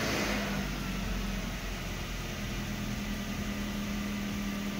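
BMW E46's N42 four-cylinder petrol engine idling steadily just after starting, heard from inside the cabin; running smoothly on fresh oil after an oil change.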